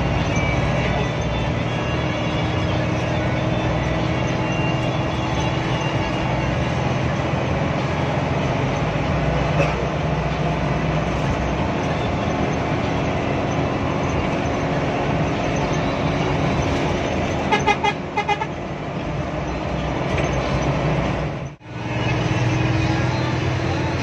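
Hino AK8 bus's diesel engine and road noise, steady, heard from inside the cabin while driving. About two-thirds through, a quick run of four or five short horn toots; the sound cuts out for a moment near the end.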